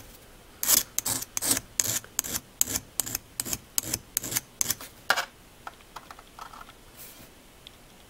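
Flat hand file rasping across the tip of a small flat steel tool, dressing up and deburring its notched end: a run of about a dozen short strokes at roughly two a second, which stop a little past halfway.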